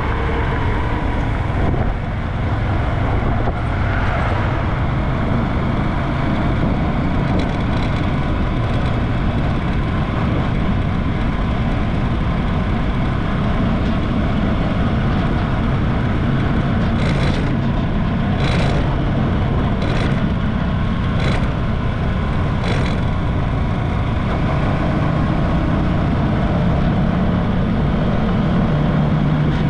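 Motorcycle riding along the road, its engine and the rushing wind running steadily on the camera mount. Five brief noises come about a second and a half apart in the second half, and the engine note rises near the end.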